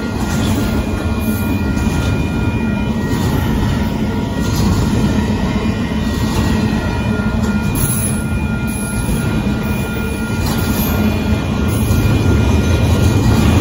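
Freight train of double-stack intermodal container cars rolling past at speed, a steady rumble of steel wheels on the rails that grows louder near the end.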